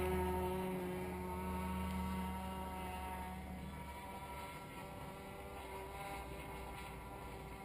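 Small single-cylinder model-aircraft engine (an MDS 10cc glow engine converted to run on petrol) buzzing in flight on a radio-controlled delta wing. Its pitch drops at the start as it passes, then holds steady while it fades as the plane flies away. The owner says the engine won't come up to full revs.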